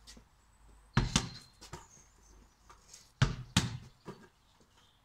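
Basketball thudding on hard surfaces: two quick hits about a second in and two more about three seconds in.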